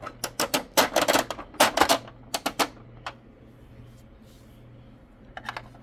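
Sharp plastic clicks and taps from toy figurines and dollhouse pieces being handled. A quick run of them fills the first three seconds, and a couple more come near the end.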